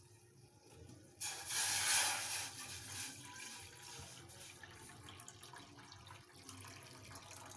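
Water pouring into a saucepan: it starts abruptly about a second in, is loudest for the first couple of seconds, then runs on more softly.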